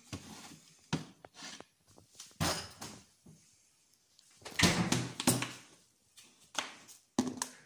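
Kitchen handling sounds: a plastic lidded bowl lifted out of a refrigerator, the fridge door closing, and the bowl set down on a countertop. A series of separate knocks, thuds and rustles, loudest about five seconds in.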